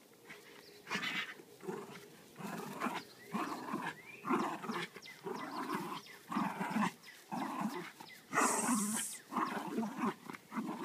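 Jack Russell terrier growling in repeated short bursts while tugging on a raccoon-fur tug toy, play growling rather than aggression. A harsher, hissy burst a little past eight seconds in.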